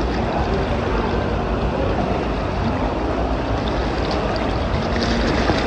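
Steady rushing of water pouring out of a tube waterslide's outlet into a pool, with a rider splashing down out of the tube about four seconds in.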